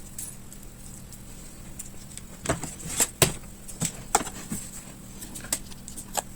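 Scattered small clicks and short scrapes of hands handling a laptop's internals around the battery cable connector, the loudest click a little after three seconds in, over a steady low hum and a thin high whine.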